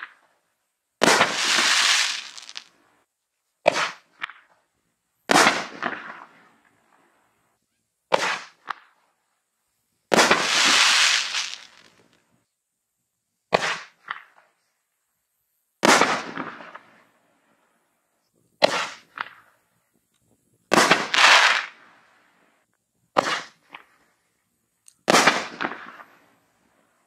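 A 6-inch 24-shot aerial fireworks cake (Raccoon Fireworks Tiger Force) firing shell after shell, about every five seconds. Each shot gives a short, sharp report at launch, and about two seconds later a loud burst overhead. Several of the bursts trail off in a long crackle.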